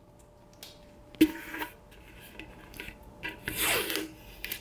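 A plastic lamp globe being handled: a sharp knock about a second in, a few light clicks, then a rubbing scrape near the end.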